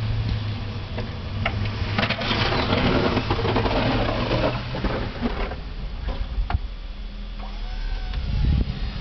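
An engine running steadily with a low hum, with a stretch of rushing noise from about two to five seconds in and a few sharp clicks.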